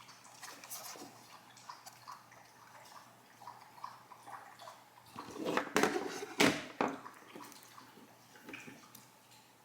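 Handling noises: scattered light clicks and rustles, with a louder stretch of rustling and scraping about halfway through.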